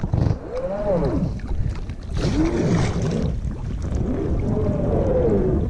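Packraft being paddled through shallow, rocky water, with a splash of the paddle. Three drawn-out groans rise and fall in pitch: the raft's fabric hull dragging over rock.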